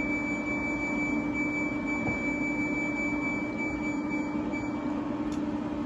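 Induction cooktop running under a loaded autoclave: an even fan hiss and a steady low hum, with a thin, high steady tone that stops about four and a half seconds in while the timer button is held.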